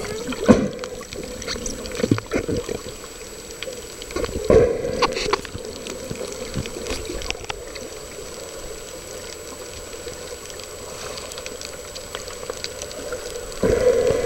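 Underwater sound in the sea: a steady muffled wash with many scattered sharp clicks. A few louder, muffled water surges come about half a second in, around two seconds, around four and a half seconds, and again near the end.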